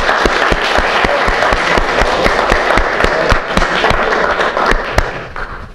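A small group of people applauding: a dense patter of hand claps that fades out near the end.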